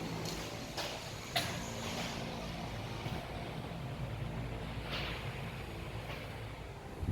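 A motor or engine running steadily with a low hum, with a couple of sharp knocks about a second and a second and a half in.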